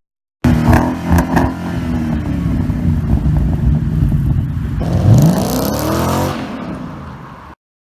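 2013 Ford Mustang GT's 5.0 L V8 through a Magnaflow Street stainless catback exhaust, with a deep tone. It revs in quick blips, then runs under steady throttle with a dip and rise in pitch about five seconds in. It then fades away and cuts off near the end.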